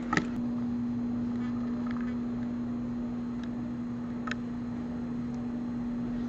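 Hair dryer running steadily, a constant hum over a rush of air, drying a damp shirt.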